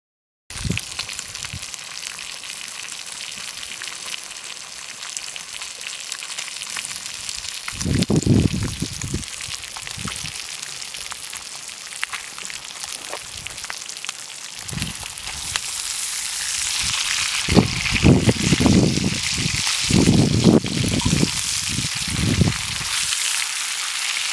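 Meat frying in a cast-iron pan over a campfire: a steady sizzle that grows louder about two-thirds of the way through. A few low muffled bumps come about a third of the way in and again near the end.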